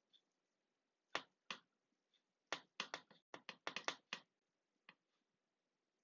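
A quick series of light clicks and taps as vegetables are placed in a glass baking dish. There are two clicks a little after a second in, then a fast run of about nine between two and a half and four seconds, and one more near five seconds.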